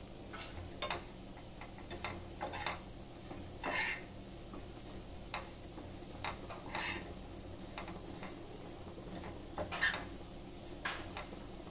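Metal spoon scraping and clinking against a nonstick pan while stirring dried fenugreek leaves (kasuri methi) being dry-roasted. The scrapes are scattered and irregular, with a few louder ones about four, seven and ten seconds in.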